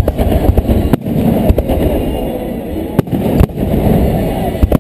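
Aerial firework shells bursting overhead: about five sharp bangs, irregularly spaced, over a continuous low rumble of the display.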